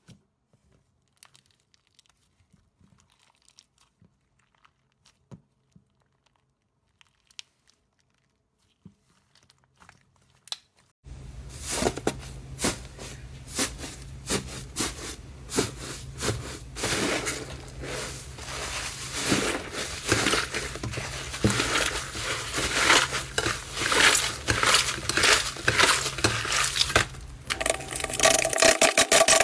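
Faint, sparse sticky clicks as fingers press soft white slime with beads in it. About eleven seconds in, the sound jumps to a loud, dense crackling and crinkling as hands press and knead a large crumbly 'tofu dreg' slime, with a low hum underneath.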